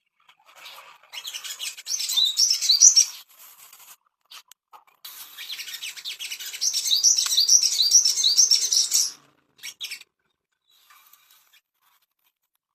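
A sogon songbird singing in rapid bursts of high, quick chirping notes: a short burst at the start, then a longer, louder run from about five to nine seconds in, trailing off into a few faint notes.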